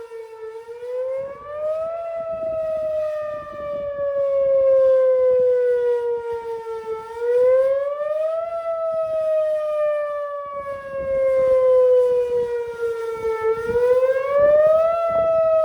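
Whelen Vortex R4 tornado siren sounding a test wail: a loud tone that rises quickly in pitch and then falls slowly, repeating about every six and a half seconds, its loudness swelling and dipping.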